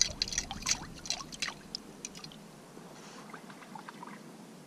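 Water splashing and dripping in an ice-fishing hole as a hooked fish on the line is hauled up through it: a quick run of sharp splashes over the first two seconds, then a few fainter drips about three seconds in.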